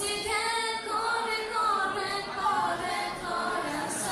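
A girl singing solo into a handheld microphone, amplified through the hall's loudspeakers, in long held notes that slide from one pitch to the next.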